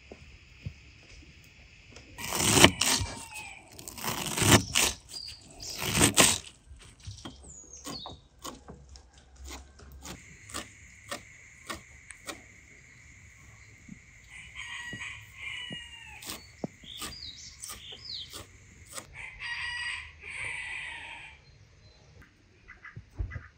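A rooster crowing loudly a few seconds in, with other poultry calling later on. In between, a knife chopping herbs on a wooden board, about two strokes a second.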